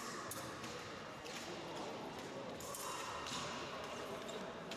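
Fencing-hall background: scattered short knocks and clicks, footfalls and blade contacts from bouts on nearby pistes, over a steady hall hum with faint distant voices.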